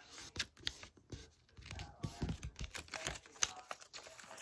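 A sheet of paper being handled and folded by hand: irregular crinkling rustles and sharp creasing crackles.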